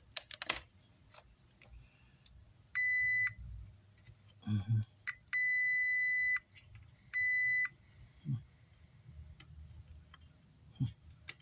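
A digital multimeter's continuity beeper sounding three times: a short beep, a beep about a second long, then another short beep. Each beep signals that the test probes have found a connection between two points on the circuit board. Light clicks and taps from the probes come between the beeps.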